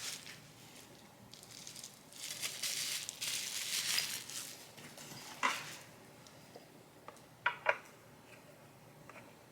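Packaging crinkling and rustling while a vanity mirror's parts are handled, followed by a click and then two sharp knocks close together.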